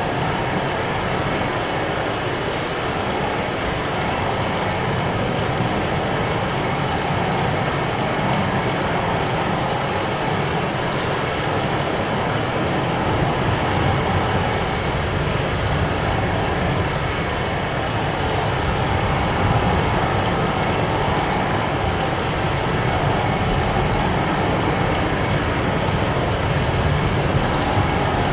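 Strong storm wind blowing outside, heard from inside a cave: a steady, dense rush with a deep rumble that grows heavier about halfway through.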